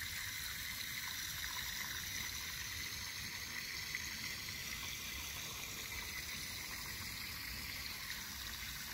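Steady trickle of running water, even and unbroken.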